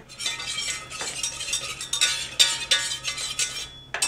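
Wire whisk scraping and clinking against the inside of a stainless steel saucepan in quick, repeated strokes, stirring a foaming butter-and-flour roux as it cooks.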